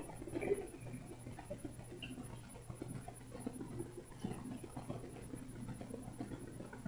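Faint rustling and light scratchy handling noises as string is tied into a knot by hand.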